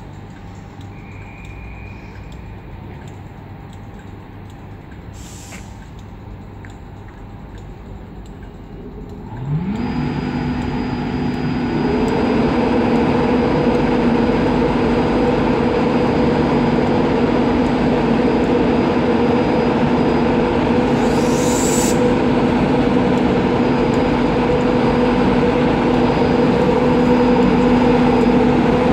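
Class 91 electric locomotive powering up: about a third of the way in, a whine rises in pitch for a couple of seconds and settles into a loud, steady drone as the locomotive starts to pull away. A short hiss of air comes twice, once before the whine and once in the middle of the drone.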